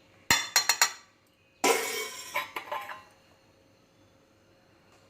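Four or five quick, sharp clinks of hard objects, then about a second later a longer clatter with more clinks, lasting about a second and a half.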